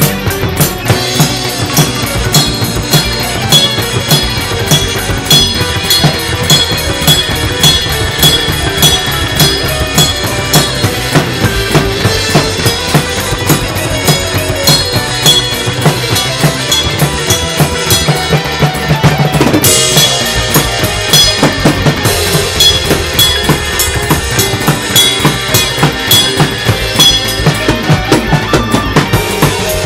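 Acoustic drum kit played fast and busily: a constant stream of bass drum, snare and cymbal strokes, with a louder, brighter cymbal wash about two-thirds of the way through.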